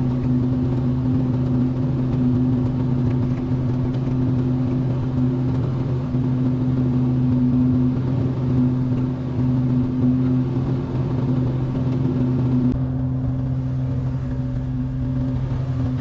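Small excavator's diesel engine running steadily as it shifts pond mud, a constant low drone with only slight changes.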